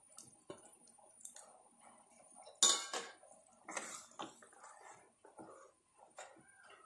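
Raw chicken pieces dropped into thick gravy in a pot, then a spatula stirring them in, with knocks and clinks against the pot. The loudest is a sharp clatter about two and a half seconds in, followed by another about a second later.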